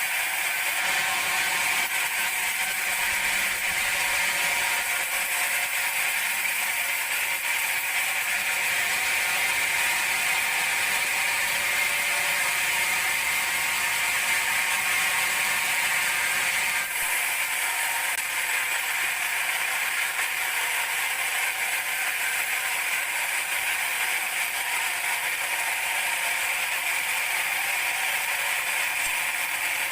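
Large band sawmill running steadily as it saws a teak log into planks, a continuous mechanical whine with several steady tones over a hiss.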